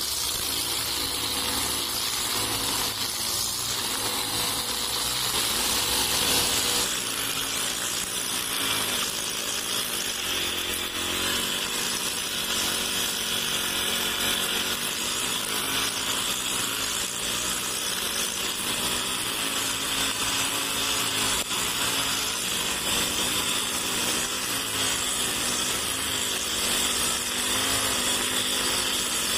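Backpack brush cutter with a four-stroke engine running steadily at cutting speed, its nylon trimmer line whirring through grass.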